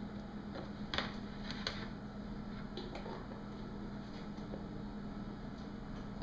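A few faint clicks and knocks from hands handling a small plastic portable boombox, about one, nearly two and three seconds in, over a steady low hum.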